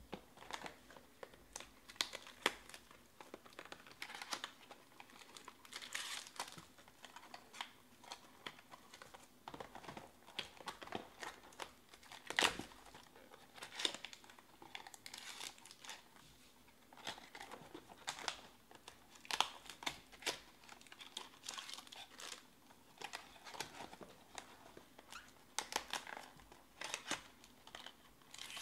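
Crinkling and rustling of foil-wrapped trading card packs and cardboard box parts being handled, with irregular sharp clicks and taps; one louder click comes about midway.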